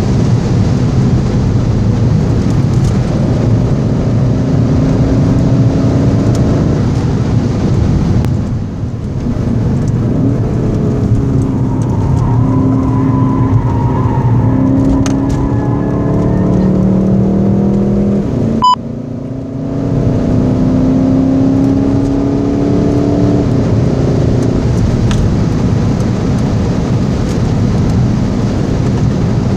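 Stock VW Golf 7 GTD's four-cylinder turbodiesel, heard from inside the cabin under hard track driving over heavy road and wind noise. It runs steady at high speed, drops away about eight seconds in as the car lifts and brakes for a corner, then rises in pitch as it accelerates. A click and a short dip about eighteen seconds in mark an upshift, and then the pitch climbs again before levelling off.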